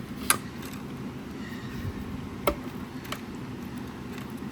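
Sharp clicks and taps from plastic speaker parts being handled and pried during disassembly. There are two louder clicks about two seconds apart and a fainter one after them.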